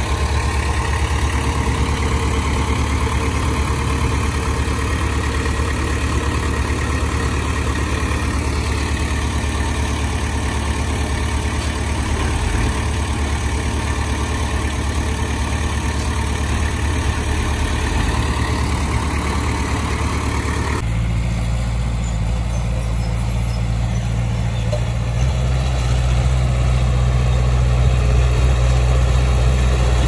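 Heavy diesel equipment engine running steadily. About two-thirds of the way in the sound changes abruptly and loses its higher tones, and the low engine note grows louder near the end.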